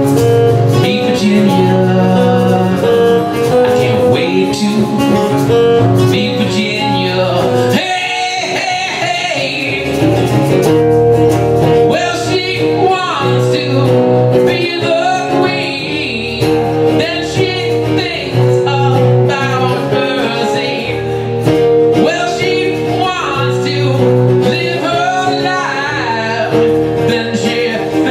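Two acoustic guitars strumming and picking, with a man singing over them.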